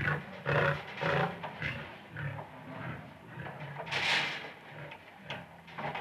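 Big cat snarling and growling in short rough bursts behind the cage bars, about two a second at first, with a louder snarl about four seconds in.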